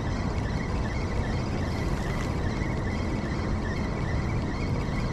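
Steady rushing outdoor noise with a low rumble, at an even level throughout, with no distinct events standing out.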